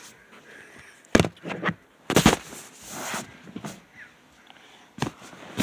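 Handling noise from a phone pressed against cloth: rustling with a few sharp knocks, about a second in, around two seconds in and once more near the end.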